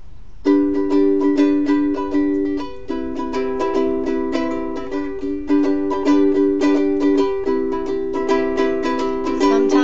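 Ukulele strummed in a steady rhythm, playing the chord intro of a song; the strumming starts about half a second in and the chord changes around three seconds and seven and a half seconds in.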